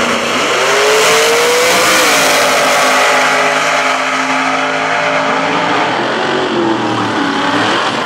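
Drag cars launching off the starting line at full throttle. The engine pitch climbs steeply, drops back at a gear change about two seconds in, then holds and slowly falls as the cars pull away down the track.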